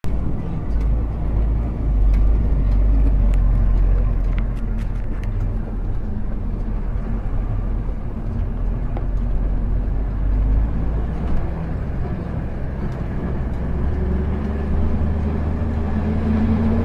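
Bus engine running with a steady low rumble, heard from on board, with a few light clicks and rattles in the first few seconds.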